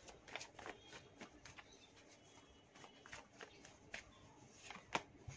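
Faint scattered taps and flicks of a tarot deck being shuffled and cut by hand, with one sharper card tap about five seconds in.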